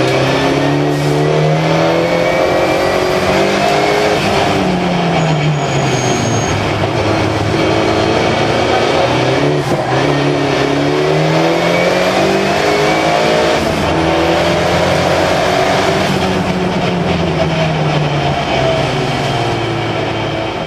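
Turbocharged Volvo 360 race car's engine, heard from inside the cabin, pulling hard on track: the revs climb, drop and climb again several times as the car accelerates, changes gear and slows for corners.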